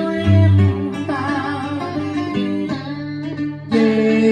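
Live Vietnamese cải lương band music led by a plucked guitar playing wavering melody lines over a bass line, with one loud low bass note held about half a second in.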